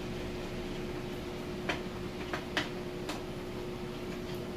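Screwdriver working the set screws on a plastic Kreg Accu-Cut saw sled's base plate clamps: four sharp, light clicks about halfway through, over a steady background hum.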